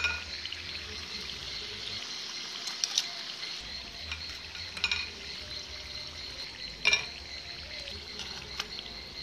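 Breadfruit chips frying in hot oil with a steady sizzle, broken four times by sharp clinks of metal tongs against the pot as the chips are lifted out.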